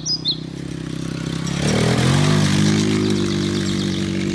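Yamaha quad bike engine running at a low steady note, then revving up about one and a half seconds in and holding a higher, louder note as the quad drives off.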